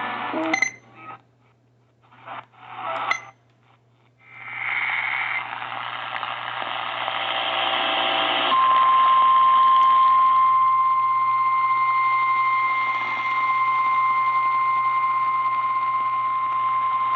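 A few brief clicks and scraps of radio noise, then a rising radio hiss. About eight and a half seconds in, the NOAA Weather Radio warning alarm tone starts: one steady 1050 Hz tone held over a hissy, weak radio signal, the signal that a warning is about to be read.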